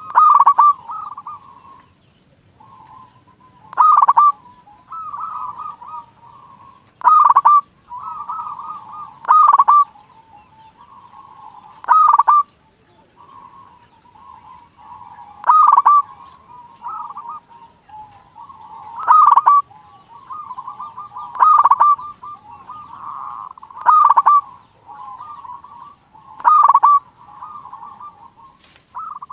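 Zebra doves (perkutut) cooing: a loud, short coo about every three seconds, with quieter rolling coos at the same pitch in between.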